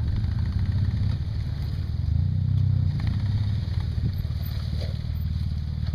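Off-road buggy's engine running at low revs as it crawls up a rocky track, swelling briefly about two seconds in, with a few faint knocks.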